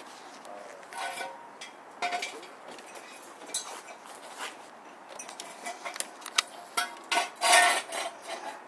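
Irregular light metallic clinks and knocks, a scattered series with the loudest cluster near the end.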